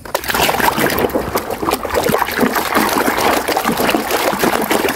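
Muddy, soapy water sloshing and splashing in a plastic basin as a toy helicopter is dunked and scrubbed by hand, with a constant patter of many small splashes.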